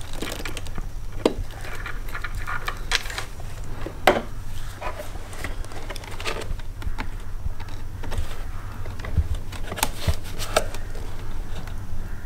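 Small clicks, taps and rustles of plastic and wire as hands work crimped terminals and wiring into a car's plastic fuse box, over a steady low hum.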